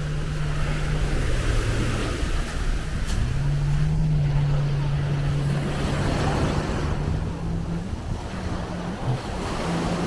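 Small waves breaking and washing up the sandy shore, with wind on the microphone. A low hum runs underneath and shifts pitch a few times.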